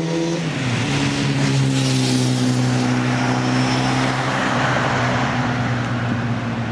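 Airbus A380 jet airliner on approach, a broad engine roar building and then easing slightly. Over it runs a steady low hum that drops in pitch about half a second in, like something passing by.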